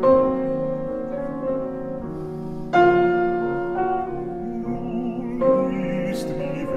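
Slow background music with long held notes, the chord changing about every three seconds.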